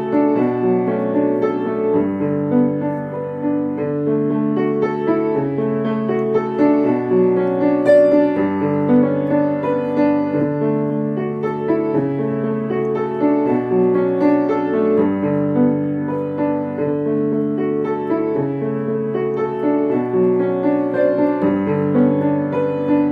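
Piano being played: a steady, flowing piece of many held notes over low bass notes that change about every two seconds.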